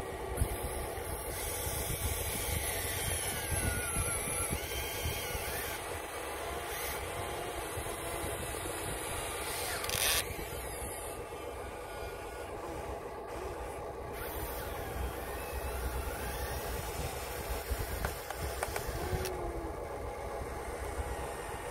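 Huina 1/14-scale RC excavator working: a steady electric-motor whine whose pitch glides as the boom swings and the tracks drive. A short rush of noise about halfway through.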